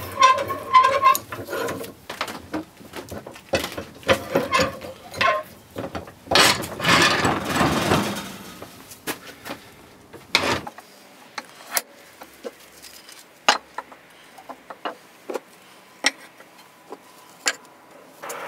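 Metal woodworking bench vise being wound open by hand, its screw squeaking and rattling, followed by scattered light knocks and clicks as wooden strips are set between its jaws.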